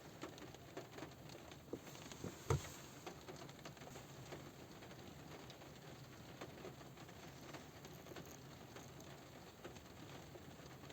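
Light rain falling on a car roof: many small drops tapping irregularly, with one louder drop about two and a half seconds in.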